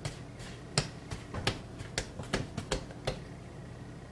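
Hands beating down risen bread dough: a string of irregular slaps and taps for about three seconds, then stopping.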